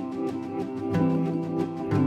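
Soft instrumental background music with a light steady beat and held chords that change about once a second.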